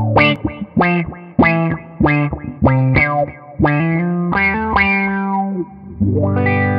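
Electric guitar played through an envelope filter (auto-wah) in a short theme tune: a run of single plucked notes, each starting bright and closing down as the filter sweeps. A sustained chord rings out near the end.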